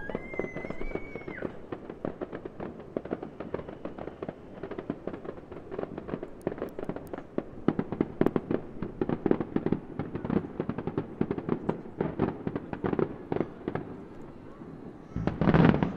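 Aerial fireworks shells crackling, a dense run of sharp pops from the glittering bursts, ending in one loud deep boom near the end.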